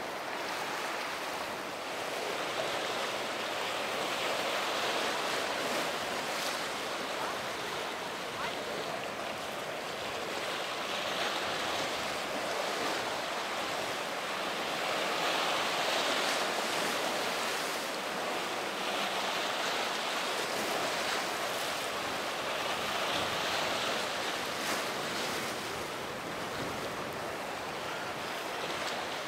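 Ocean waves and surf rushing, with wind noise on the microphone; the wash swells and eases every few seconds.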